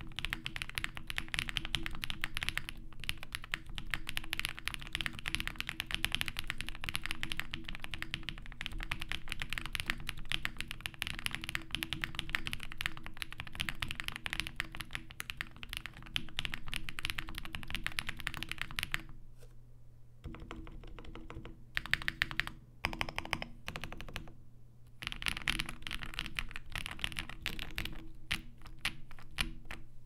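Typing on a Zoom65 custom mechanical keyboard with lubed Durock POM linear switches and GMK Redacted doubleshot ABS keycaps, fully foamed (case, PCB, plate and PE foam) to damp the sound. A fast, continuous run of keystrokes thins to a few scattered key presses a little past the middle, picks up again, then stops just before the end.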